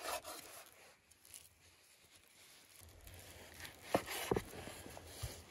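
Chef's knife slicing through tandoor-cooked lamb tail fat on a wooden cutting board, a soft tearing cut. Around four seconds in, the blade knocks twice against the board.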